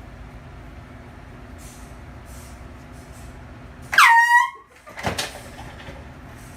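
A short, loud, high-pitched squeal about four seconds in that swoops down in pitch and holds for a moment, followed about a second later by a sharp knock, over a steady low background hum.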